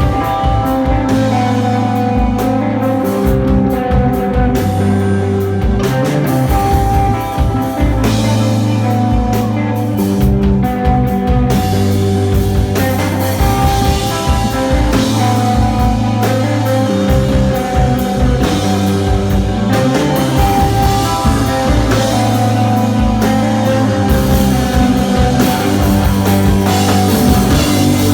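Live desert-rock trio playing: droning electric guitar over held bass notes, with a drum kit keeping time.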